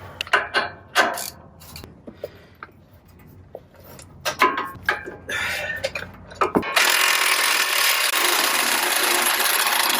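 Metal tools clinking and knocking for several seconds. Then, about seven seconds in, a power tool starts and runs steadily and loudly, working on the large lower shock-mount bolt.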